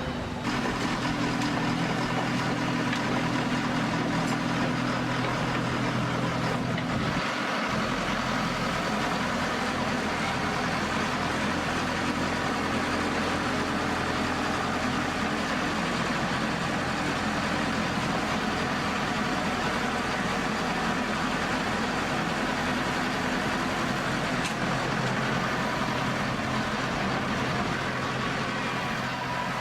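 The pile driver's diesel engine running steadily. About seven seconds in, its pitch drops to a lower, steady speed, as when the hand throttle is eased back.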